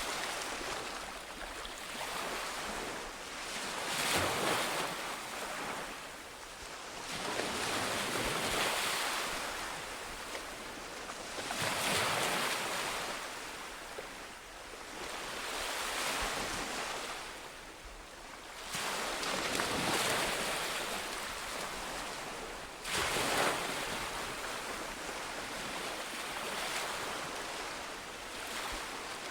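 Sea waves breaking on a shore, one surge of surf about every four seconds, each swelling and then washing back.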